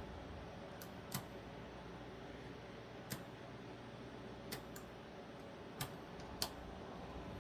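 Small parts of a folding knife clicking and tapping as they are handled and fitted during reassembly: several sharp clicks at irregular intervals, the loudest near the end.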